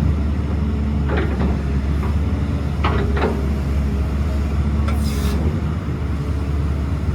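Zoomlion 205 excavator's diesel engine running steadily with a low hum, with a few short sharp sounds about one and three seconds in and a brief hiss about five seconds in.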